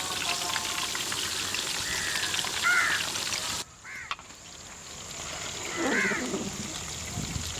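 Bird calls: a few short arched calls, the loudest and lowest about six seconds in, over a steady high hiss. The sound drops out abruptly just before four seconds.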